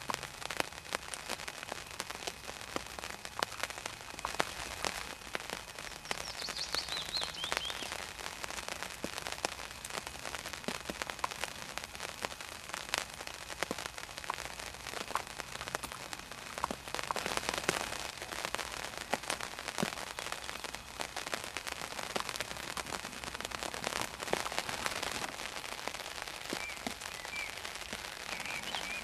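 Continuous dense crackling patter made of many small clicks, with a brief high, descending chirp about six seconds in and faint chirps near the end.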